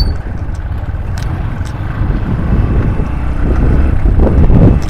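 A motorcycle engine running on the move, with a steady low hum that grows louder in the second half.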